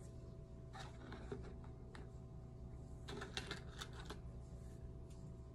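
Light plastic clicking and rattling as false press-on nails are picked through and sorted: a few clicks about a second in, then a quick cluster of clicks about three to four seconds in.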